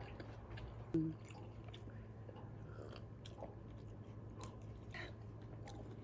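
A person chewing and eating food close to the microphone: soft scattered mouth clicks and crunches over a low steady hum, with one brief louder sound about a second in.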